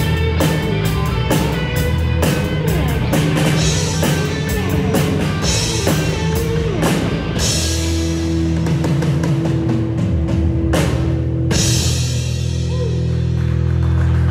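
Live rock band playing loud on electric guitars, bass and drum kit with a steady drumbeat. About seven and a half seconds in, the beat stops and the band holds a ringing chord, with a cymbal crash a few seconds later, as the song comes to its end.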